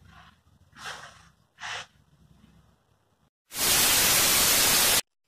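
Two faint breaths, then a loud burst of TV static hiss about a second and a half long that cuts off suddenly: an analogue-TV 'snow' transition effect.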